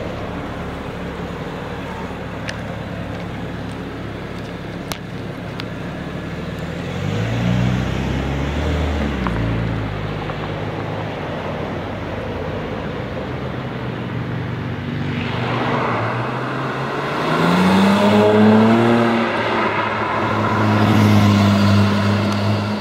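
Alpina B3S Biturbo's twin-turbo straight-six idling, then pulling away with a short rise in revs about a third of the way in. Near the end it accelerates hard, the revs climbing twice and getting louder.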